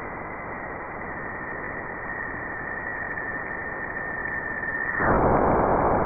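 Jupiter's radio emissions converted to audio: electromagnetic waves from the planet's magnetic field, picked up by spacecraft instruments and played as sound. It is a steady static-like hiss with a faint steady high tone. About five seconds in, the tone stops and the hiss gets louder.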